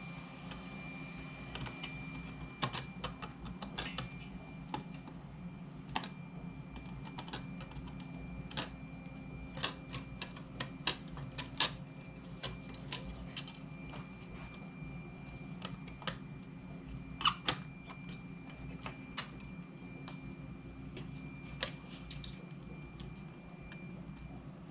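Irregular small clicks and taps of hands working on an Xbox 360 disc drive, plastic and metal parts being handled, clipped and set down while the logic board is swapped, over a steady low hum.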